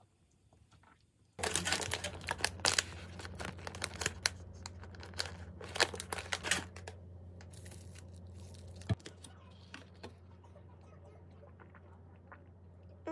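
Plastic snack-cake wrapper being torn open and crinkled: dense crackling starting about a second and a half in and lasting about five seconds, then scattered rustles and clicks.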